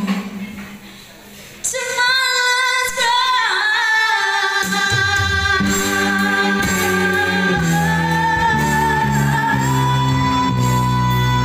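A woman singing a slow ballad through a microphone and PA, holding long notes with vibrato after a brief pause. About halfway through, electric bass and keyboard come in under her.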